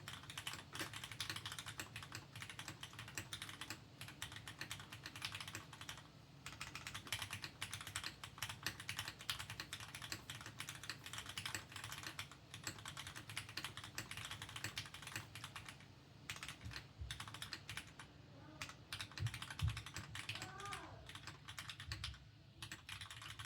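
Steady typing on a Mode Sonnet V1 mechanical keyboard with lubed, spring-swapped Cherry MX Black linear switches on an aluminium plate, foam-stack mounted: a dense run of keystroke clacks. The typing thins out over the last several seconds, with a faint voice in the background.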